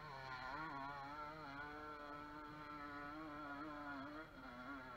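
Dirt-bike engine held at high revs, its pitch wavering slightly. It comes in suddenly and dips and wobbles near the end.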